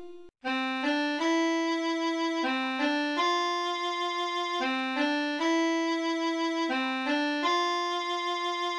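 Harmonium playing a slow single-note melody, each note held and stepping among a few neighbouring pitches. It starts about half a second in and stops near the end.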